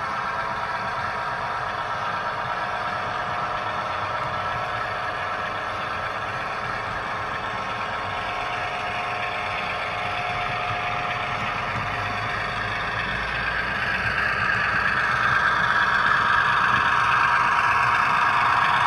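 Simulated diesel switcher engine from an ESU LokSound DCC sound decoder in an HO scale Athearn Genesis MP15AC model locomotive, running steadily through the model's small onboard speaker. It grows louder over the last few seconds as the locomotive comes closer.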